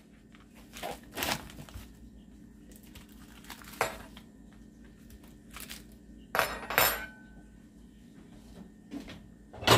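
Scattered crinkles and tears of plastic packaging as a package of chicken thighs is opened, with clinks from the slow cooker's glass lid being lifted off, the sharpest pair about six and a half to seven seconds in, one with a brief ring.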